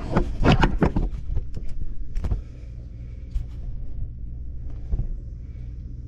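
Quick knocks and clicks of PVC drain pipe and fittings being handled, bunched in the first two seconds or so, over a steady low hum.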